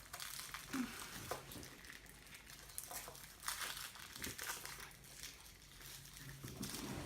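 Foil wrapper of a chocolate surprise egg crinkling as it is unwrapped by hand, in faint, scattered rustles.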